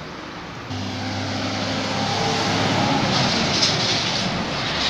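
Heavy diesel truck, a prime mover hauling a trailer of LPG gas cylinders, passing close by: a steady low engine drone with tyre and road noise that grows louder to a peak about three to four seconds in. Quieter distant traffic is heard at the start.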